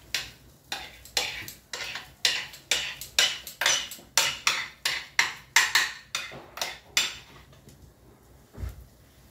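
Metal spoon scraping and knocking against a serving dish as mashed prawn paste is pushed together, about two strokes a second, stopping after about seven seconds. A single dull thump comes near the end.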